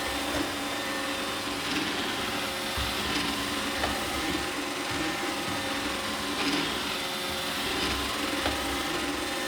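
Roomba 800-series robot vacuum running: a steady motor whir with a few faint clicks and knocks scattered through it.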